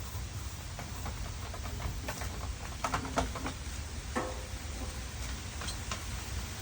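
Scattered light clicks and taps, busiest in the middle, over a steady outdoor hiss and low rumble.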